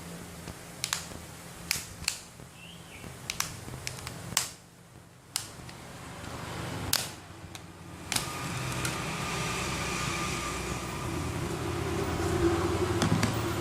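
Sharp handling clicks and taps of phone repair tools, spaced roughly a second apart. From about eight seconds in, a steady fan-like whirr with a low hum joins in and grows slightly louder.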